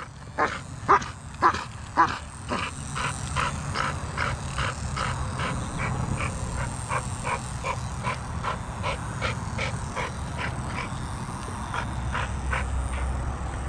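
An American Staffordshire Terrier giving short, rapid barks, about two to three a second, the loudest four in the first two seconds.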